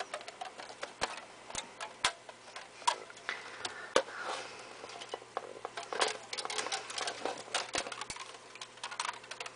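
Hands pulling rubber bands off a bundle of software packages: irregular sharp clicks and taps as the packages are handled, with soft rustling in between.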